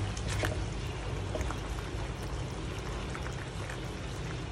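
Thick dark beef curry simmering in a metal wok as a metal spatula stirs it: a steady wet, liquid sound with a few light scrapes.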